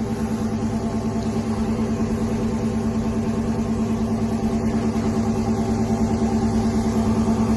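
A motor running with a steady hum and a slight regular pulsing, a little over two beats a second.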